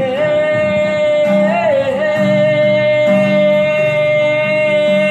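Bengali song: a singer holds one long note, wavering briefly in the middle, over guitar accompaniment; the note ends near the end.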